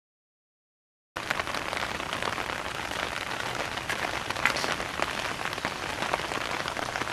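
Silent for about a second, then steady rain falling on wet pavement and ground, with many small drop ticks.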